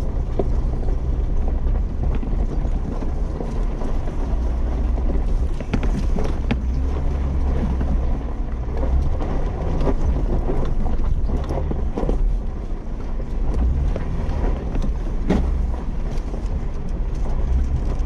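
A Jeep's engine runs in a steady low rumble as it drives over a rough, rocky dirt trail. Scattered knocks and rattles come from the vehicle jolting over rocks and ruts, a handful of them a few seconds apart.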